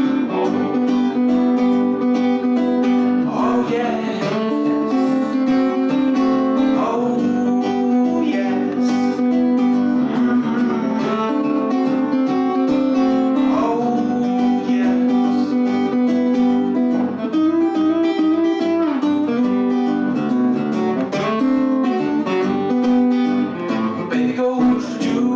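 Acoustic blues guitar playing an instrumental break between sung verses, with long held notes over a plucked rhythm and a few bent notes.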